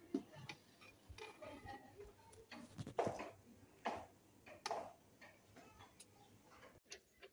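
A long metal ladle stirring green soup in a large aluminium pot, with scattered knocks, scrapes and sloshes as it hits the pot's sides; the loudest come about three, four and five seconds in.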